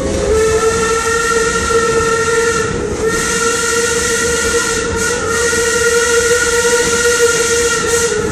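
Steam locomotive whistle blowing a long chord of several notes, broken briefly about three seconds in and then sounding again for more than five seconds, over the rumble and steam hiss of the moving train.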